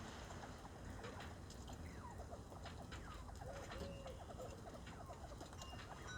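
Bobwhite quail giving soft, faint chirps and clucks, with a few short falling calls and scattered light ticks among them.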